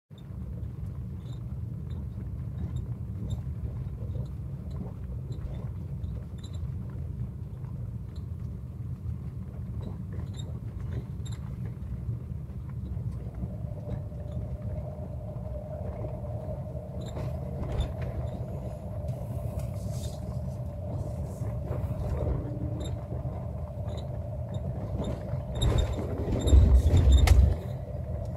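A vehicle driving slowly along a rough dirt road, with a steady low rumble of engine and tyres. A steady hum joins about halfway, and the rumble grows louder for a couple of seconds near the end.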